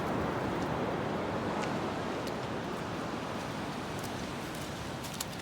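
Steady wash of ocean surf, easing slightly, with a few faint clicks near the end.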